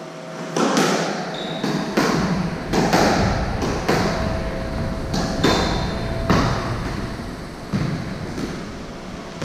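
A squash rally: about a dozen sharp, echoing hits at irregular spacing, roughly one a second, as the ball is struck by rackets and bounces off the court walls. Footsteps thud on the wooden floor, with a couple of brief high shoe squeaks.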